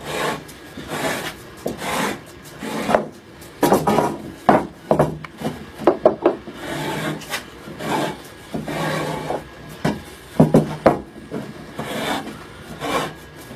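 Hand plane pushed along a wooden board in repeated rasping strokes, about one a second, shaving the timber down.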